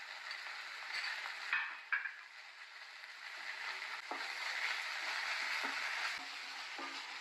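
Onion paste with garlic, ginger and kalonji paste frying quietly in butter and oil in a non-stick pan, a wooden spatula stirring and scraping through it. A few short knocks of the spatula against the pan.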